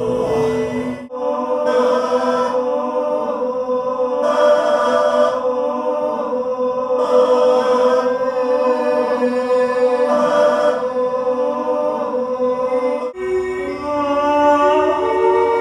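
Layered, live-looped vocal drones: held sung notes stacked into a chant-like chord, with a breathy hiss that swells and fades about every two and a half seconds. The texture cuts off abruptly about a second in and again near the end, each time giving way to new held pitches.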